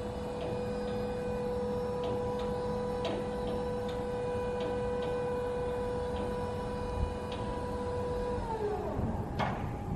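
Genie GS-4069DC electric scissor lift raising its platform: the electric hydraulic pump motor runs with a steady whine, then winds down, falling in pitch, about eight and a half seconds in as the lift stops. Light ticks come irregularly while it runs, and a sharp click sounds near the end.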